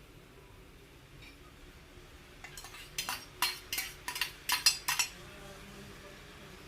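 A spoon clinking against cookware: about seven quick, sharp knocks packed into a couple of seconds, starting about two and a half seconds in.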